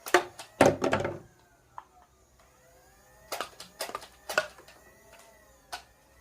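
Toy foam-dart blaster being fired at targets: a burst of sharp plastic clacks and knocks in the first second, more around the middle and a single one near the end. A faint whine rises and falls slowly underneath.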